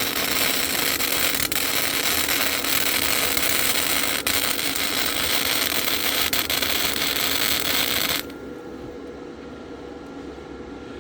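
Lincoln flux-core wire-feed welder arc crackling and hissing steadily on thin steel pipe at its lowest power setting, then cutting off suddenly about eight seconds in. A quieter steady hum remains after the arc stops.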